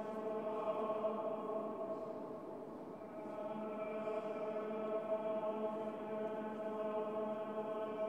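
Church choir chanting Gregorian-style plainsong, holding long steady notes. The voices ease off slightly and move to a new note about three seconds in.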